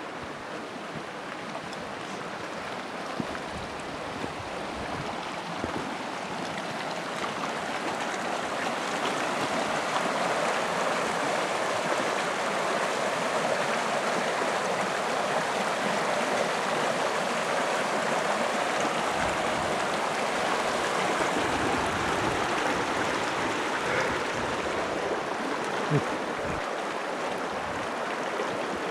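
Hunters Creek, a mountain creek flowing fast, with its water rushing steadily. It grows louder over the first ten seconds or so, then holds.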